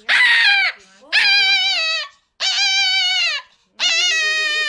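Small dog yowling in four long, high, wavering cries in a row, each about a second long. These are distress or protest cries at being held and handled.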